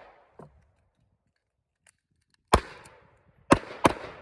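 Three 9mm handgun shots: one about two and a half seconds in, then a quick pair about a second later, each with a short ringing tail. A faint click comes just under half a second in.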